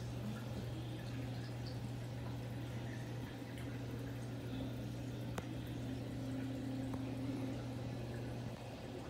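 Aquarium filter running: a steady low hum with water trickling and bubbling. There is a single light click a little past halfway, and the hum drops away near the end.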